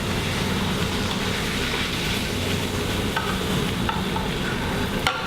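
Cooking oil sizzling in a hot frying pan where a cod fillet has just been fried, a steady hiss over a low hum. There are a few light clicks a little after halfway and a sharper click near the end.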